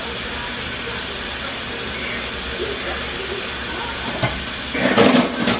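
A steady hiss, with a short burst of loud clattering knocks near the end.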